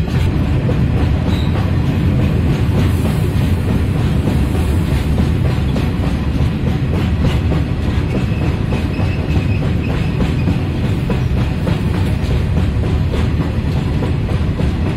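A goods train's open-top wagons passing at speed close by: steady loud rumble with wheels clattering rapidly over the rail joints.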